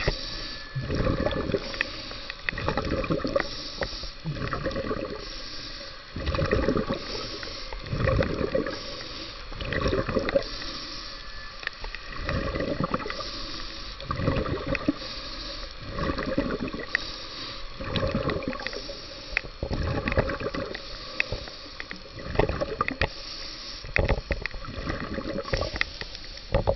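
The filming swimmer's breathing heard underwater through the camera housing: a rhythmic cycle of hissing inhalations and rushing, gurgling exhaled bubbles, repeating about every one to two seconds.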